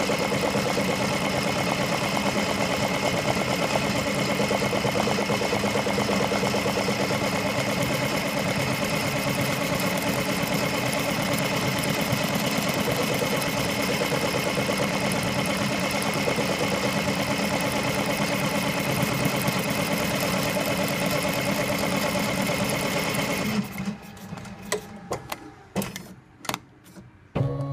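Multi-needle embroidery machine stitching lettering into a shoe upper, a fast, steady needle clatter. It stops about 23 seconds in, leaving a few sharp clicks and clunks.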